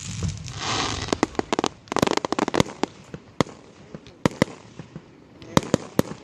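Aerial fireworks bursting overhead: crackling clusters of sharp cracks about half a second in and again around two seconds, then scattered single pops, with a few louder cracks near the end.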